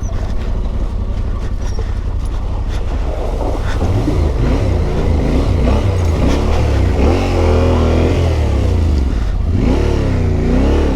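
Adventure motorcycle engine revving up and down again and again through a deep water crossing, over a steady low rumble. The revving starts about four seconds in.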